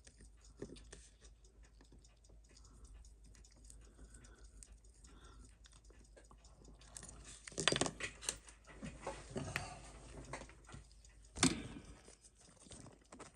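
Small clicks and taps of watchmaker's tools and tiny movement parts on the bench during disassembly, faint at first, with a busier run of clicks and rustling about seven seconds in and one sharper click near the end.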